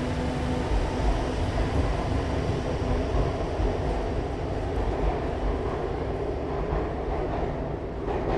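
Metro train running in a station: a steady low rumble and rattle of the cars, easing slightly toward the end.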